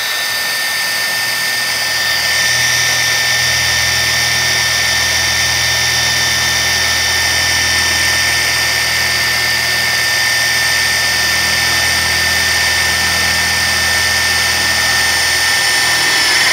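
Metabo KHA 18 LTX BL 24 cordless rotary hammer in drill-only mode, percussion disengaged, running steadily as a 10 mm steel bit bores into steel without a pilot hole: a continuous motor-and-gear whine with a steady high tone over a low hum.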